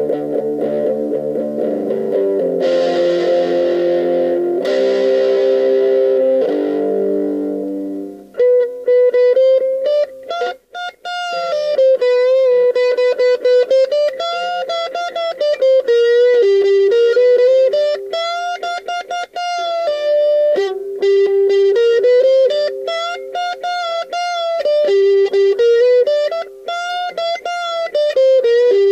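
Electric guitar with a distorted 'brown sound' amp tone: held chords for about the first eight seconds, then a fast run of single notes that climbs and falls in repeating phrases.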